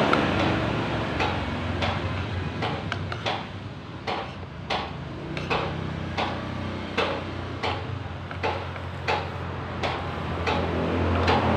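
Spoons and forks clicking and scraping against plates while eating, in irregular sharp clinks about once or twice a second, over a steady low background hum.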